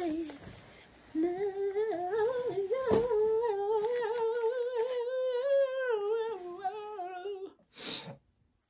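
A woman humming a wordless tune that wavers up and down for about six seconds. There is a single sharp click about three seconds in and a short rush of noise near the end.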